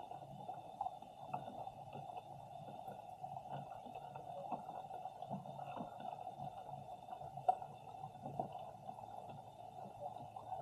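Muffled underwater sound picked up by an Insta360 X3 camera resting on the sea floor: a steady dull rumble and low hum, scattered with small faint clicks and ticks, one sharper click about seven and a half seconds in.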